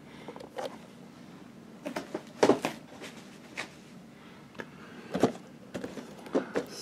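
Cardboard figure boxes with plastic windows being handled and shuffled by hand: scattered scrapes, rustles and light knocks, the loudest about two and a half seconds in.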